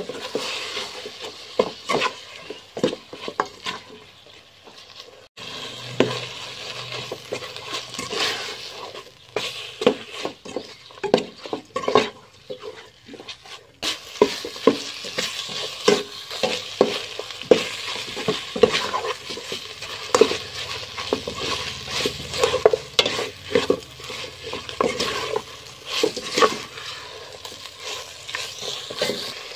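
A metal ladle scraping and clattering against an aluminium pot in quick repeated strokes as chicken pieces are stir-fried in curry paste, with a steady frying sizzle underneath.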